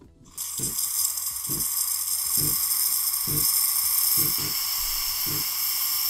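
Steam wand of a Technora Epic TCM 801A double-boiler espresso machine being purged: steam hisses out steadily, starting about half a second in, to blow milk remnants out of the spout. Under the hiss a low throb repeats about once a second.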